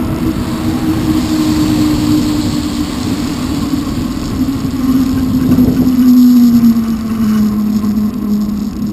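Electric bike's motor whining steadily, its pitch slowly falling as the bike slows, over a rough rumble of wind on the microphone and tyres on wet pavement.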